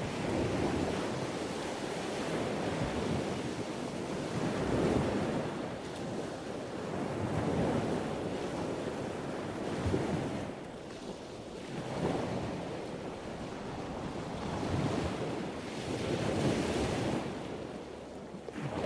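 Sea waves washing in, the surge swelling and falling away every few seconds, with wind buffeting the microphone.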